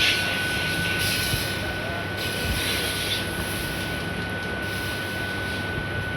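A newly installed water-cooler compressor running with a steady low hum and a constant high whine, with spells of hissing that come and go every second or so.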